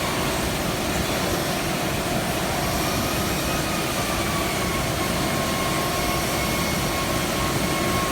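Steady machine whir with faint thin whining tones that drift slightly in pitch, running without a break.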